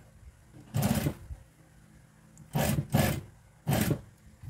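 Juki industrial lockstitch sewing machine stitching binding onto fabric in three short bursts of about half a second each, with a faint low hum between them.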